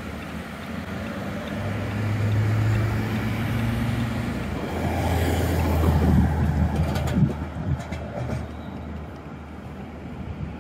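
Alstom Citadis tram passing on grass track and pulling away: the low steady hum of its drive with rolling noise. It is loudest in the first half and fades as the tram moves off.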